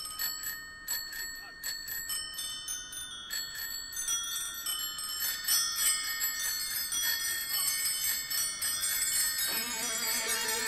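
Music: a cascade of many bicycle bells ringing, a few rings a second at first and then crowding into a dense, rising wash of ringing. Electric guitar comes in near the end. This is the bell interlude of a rock song.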